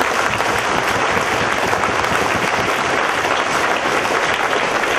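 Audience applauding: many people clapping steadily and loudly.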